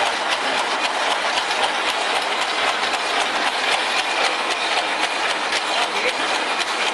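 Automatic barbed wire making machine running, twisting barbs onto the line wire: a steady mechanical clatter of rapid, regular clicks.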